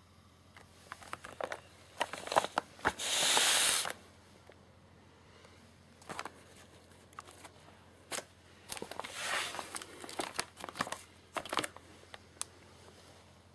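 Plastic shrink-wrap on a boxed firework cake crinkling and rustling as the box is handled and turned over, in two main spells, the loudest about three seconds in.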